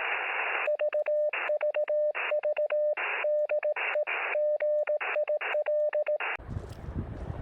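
Morse code (CW) from an HF ham radio receiver: a single steady tone keyed in quick dots and dashes, with band hiss filling the gaps between characters. About six seconds in it cuts off abruptly, and low wind rumble on the microphone follows.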